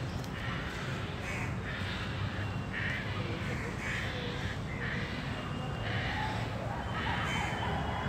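A bird cawing over and over, a short harsh call roughly every half second to second, over a steady low background rumble.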